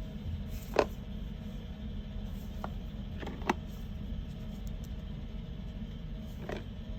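A few sharp clicks and taps, as of boxes and plastic packaging being handled, over a steady low rumble; the loudest comes about a second in, another in the middle.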